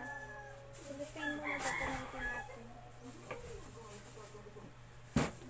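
A rooster crowing, with thin plastic gloves rustling as they are pulled on. A single sharp snap comes near the end.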